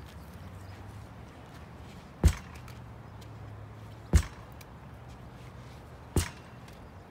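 Lacrosse ball hitting a pitchback rebounder and coming straight back to the stick in a quick-stick drill: three sharp smacks about two seconds apart.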